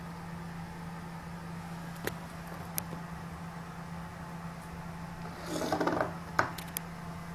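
A cat pawing at a plastic food bowl on a wooden floor: a few light clicks, then a brief scraping rustle followed by two sharp clicks near the end, over a steady low hum.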